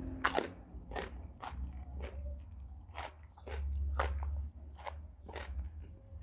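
Close-up crunching and chewing of raw vegetables, a sharp crunch about every half second to a second with wetter chewing in between.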